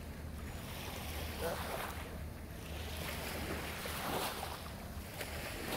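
Small waves washing at the water's edge, with wind rumbling steadily on the microphone.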